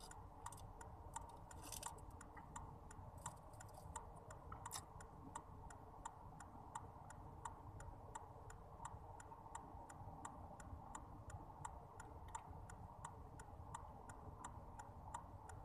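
Faint, steady ticking of a car's turn-signal (indicator) relay, about three even clicks a second, over a low steady hum in the car cabin.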